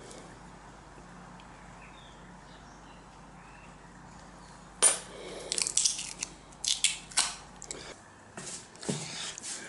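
Clear polytunnel repair tape being pulled off its roll, a run of sharp crackling rips starting about halfway through after a stretch of faint low hum. Near the end come more scattered crackles as the tape and thin poncho fabric are handled.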